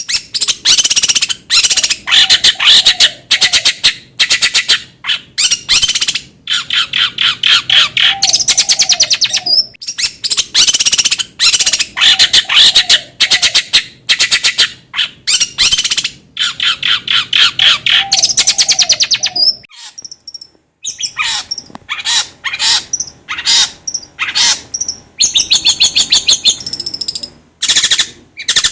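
Long-tailed shrike (cendet/pentet) singing: fast, harsh, rattling chatter in phrases of a few seconds each, repeated with short breaks. There are shorter, sparser calls in the last third.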